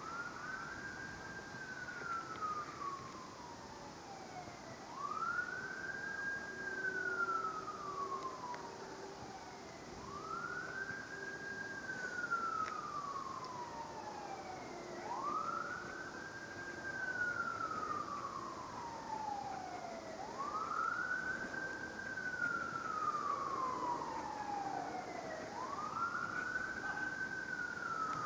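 Wailing siren: a quick rise in pitch followed by a slow fall, repeating about every five seconds.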